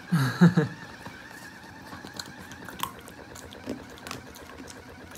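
A few soft, scattered taps and knocks of a plastic treat ball being pawed and mouthed by a poodle on a foam mat.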